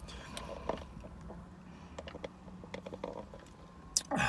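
A person quietly sipping a fountain drink through a straw, with small wet clicks and swallows, then a breathy exhale near the end.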